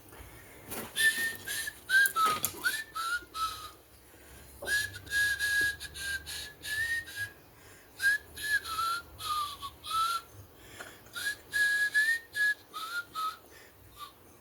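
A man whistling a tune: a single clear melody of short, gliding notes, with a couple of brief pauses.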